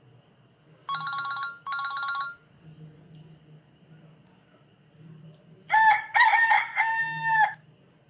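A recorded rooster crow played as a ringtone through a Nokia 3220 phone's small speaker, coming in about two-thirds of the way through. About a second in, two short electronic tones sound just before it.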